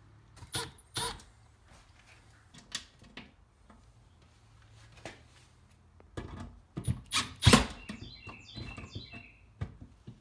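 Metal breaker-panel cover being handled and fitted, with scattered clicks and knocks as it is positioned and its screws are started, the loudest knocks about three quarters of the way through. A short run of high squeaks follows near the end.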